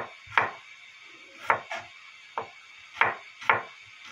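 Chef's knife slicing garlic cloves into thin strips on a wooden cutting board: sharp separate knocks of the blade on the board, about six or seven at an uneven pace, with a pause of about a second after the first two.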